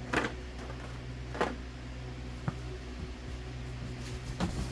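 Fireworks packaging being handled: four short rustles, the last two blurred together, and one light knock over a steady low hum.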